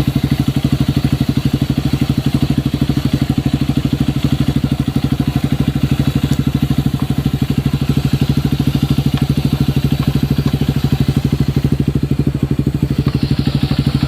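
Honda CRF150L's single-cylinder four-stroke engine idling steadily through a Yoshimura full exhaust with a large outlet, an even, rapid pulsing beat.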